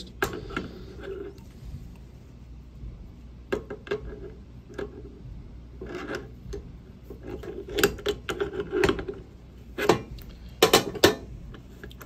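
Crescent wrench clinking and scraping against the stainless steel beer nuts on a keg line fitting as they are loosened, with scattered metal clicks and rubbing. The loudest clinks come about ten seconds in.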